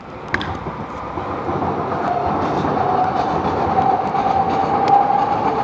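Loud rumble of a passing large vehicle with a steady whine on top, swelling gradually over several seconds. One sharp knock comes shortly after the start.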